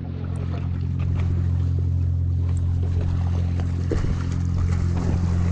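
Motorboat engine running steadily, a constant low drone, with a few faint clicks over it.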